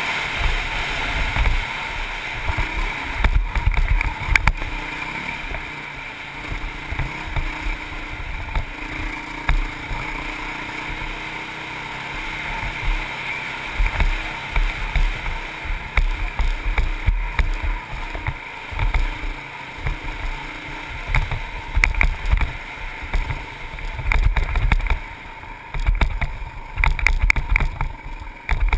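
Honda CRF450X single-cylinder four-stroke dirt bike engine running under way at trail speed, with heavy wind buffeting the on-board microphone. A few sharp knocks come near the end.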